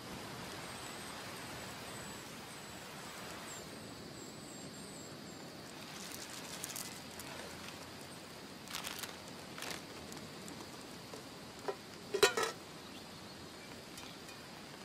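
Outdoor ambience: a steady faint hiss, with faint high chirping in the first few seconds. A few short sharp clicks follow, the loudest about twelve seconds in.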